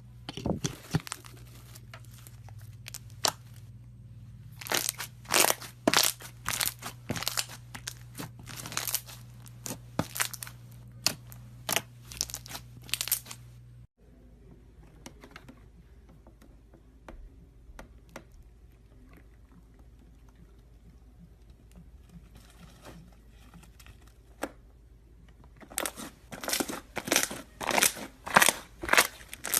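Slime being squeezed and worked by hand, crackling and popping in rapid clusters. The pops come thick for most of the first half, thin out to scattered faint clicks after a cut, and turn dense again near the end.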